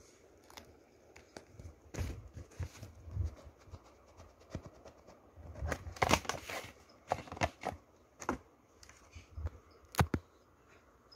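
Blu-ray case and its packaging being handled: irregular rustling, taps and clicks, busiest about six seconds in, with one sharp click about ten seconds in.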